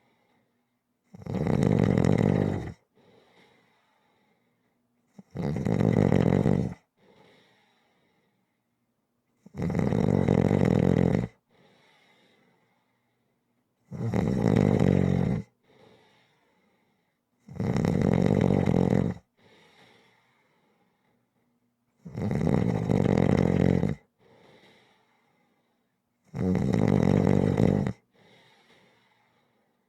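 A person snoring in a slow, regular rhythm: seven loud snores, about one every four seconds, each followed by a much fainter sound.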